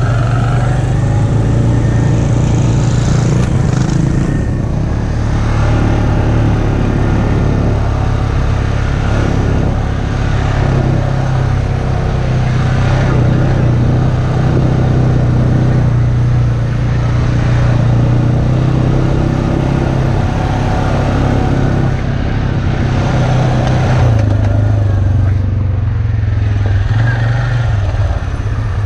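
ATV engine running steadily while riding slowly over a dirt trail.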